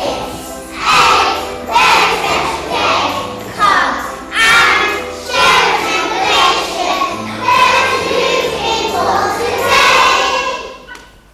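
A choir of young children singing together, with steady low instrumental notes under the voices. The song ends about a second before the end.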